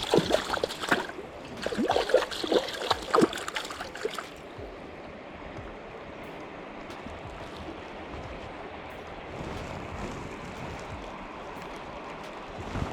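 Water splashing and sloshing for about the first four seconds, then the steady rush of flowing river water.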